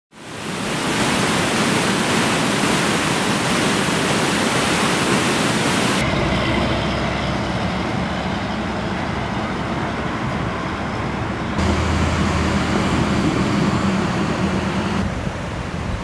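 Floodwater rushing over a low weir: a steady, loud rush of water that fades in at the start and changes abruptly about six, eleven and a half and fifteen seconds in, as the shots change.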